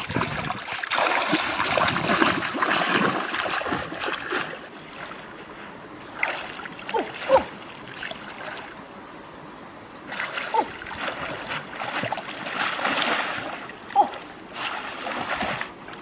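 River water splashing and sloshing as a person thrashes and swims through it, in bursts with quieter stretches between and a few short sharp slaps of water.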